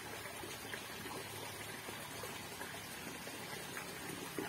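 Small, shallow stream trickling steadily over stones, faint and even, with a brief soft knock near the end.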